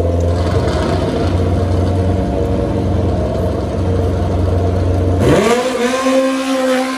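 Suzuki Hayabusa inline-four drag bike held at steady revs on the start line, then about five seconds in a sharp rise in pitch as it launches and pulls hard away down the strip.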